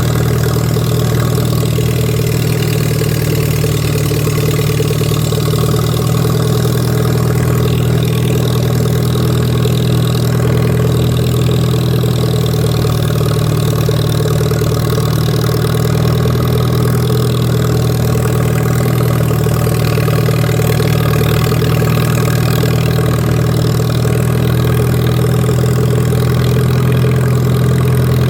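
Lawn mower engine running steadily at constant speed while cutting grass, a loud, even hum with no change in pitch.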